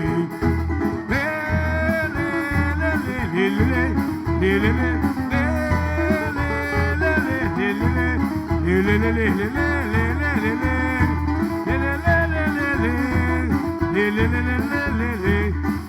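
Band playing an instrumental break in a coco song: a gliding melody line over a steady, pulsing low rhythm, with no sung words.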